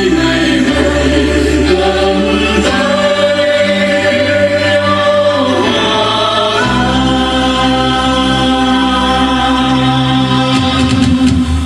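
Mixed choir singing a Vietnamese song in long held notes over instrumental accompaniment with a sustained bass line, the chords changing a few times.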